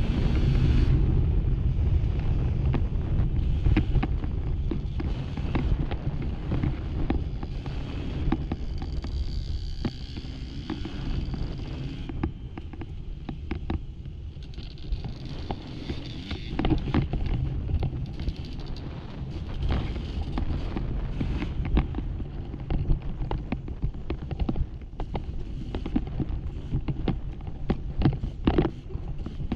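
Off-road dirt bike engine running at low, uneven revs over a loose, rocky trail, with frequent sharp knocks and clatter throughout.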